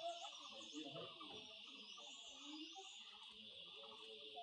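Steady high buzz of insects, with a few faint high chirps and indistinct distant voices.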